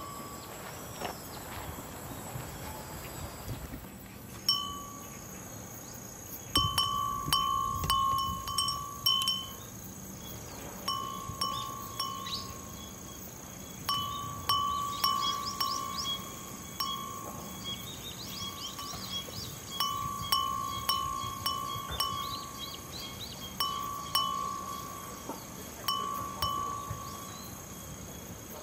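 Japanese glass wind chime (fūrin) ringing in the breeze, its clapper striking the glass bell in irregular tinkling rings every second or two.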